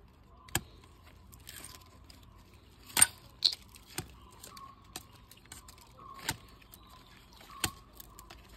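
A curved billhook blade chopping into tree bark: about six sharp strikes at uneven intervals, the loudest about three seconds in. The bark is being hacked to make the sambrani resin bleed from the tree.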